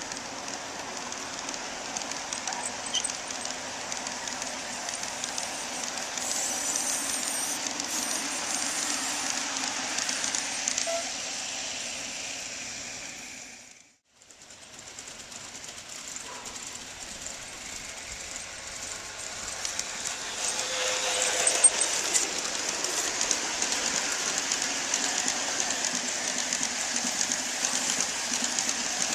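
Large-scale garden-railway model freight train rolling along outdoor track: a steady rolling noise of metal wheels on rails, scattered with small clicks. The sound fades out about halfway and fades back in.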